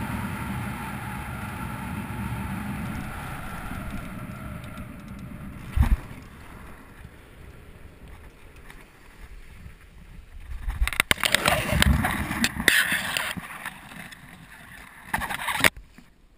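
Air rushing over the microphone as an engine-out paramotor glides in after its spark plug blew out, with a sharp thump about six seconds in. Later come loud scuffing and crinkling as the pilot touches down on the pavement and the nylon paraglider wing and lines come down, and another short burst of canopy fabric rustling near the end.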